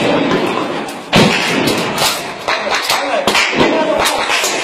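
Gunfire: several sharp shots about a second apart, with shouting voices between them.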